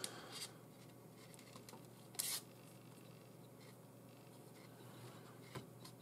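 Faint rustle of nylon paracord being handled and drawn through a knot, with one brief louder swish of the cord about two seconds in, over a steady low hum.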